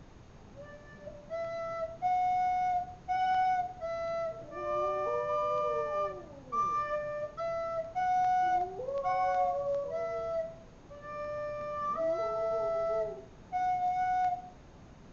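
Recorder playing a slow tune of held notes while a small dog howls along three times, each howl rising and then falling in pitch.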